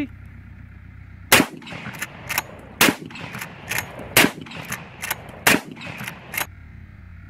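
Adler A-110 12-gauge lever-action shotgun firing four rounds of buckshot, roughly a second and a half apart. Between shots, and after the last, come two quieter clacks as the lever is worked open and shut to chamber the next shell.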